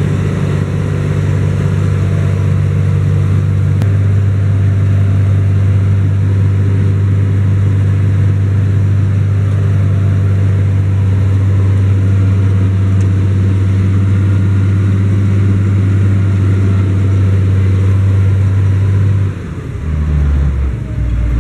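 The 6-cylinder Liebherr diesel of a Schlüter Super Trac 2200 TVL-LS tractor running steadily, heard from inside the cab. Near the end the engine note drops lower and quieter.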